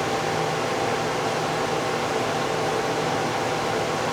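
Steady hum of a running fan, an even rush of air with a few faint steady tones under it.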